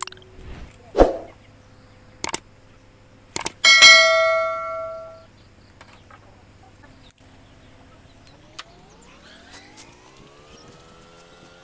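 Sharp snips and clicks as old fishing net is cut with pruning shears and a knife, then a loud metallic ring about four seconds in that fades away over about a second and a half. A rooster crows faintly near the end.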